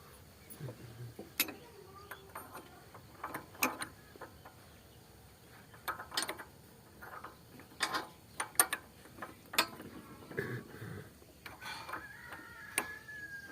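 Hand tools working a motorcycle spark plug: scattered, irregular metal clicks and clinks of a wrench or ratchet on the plug, with a short squeak near the end.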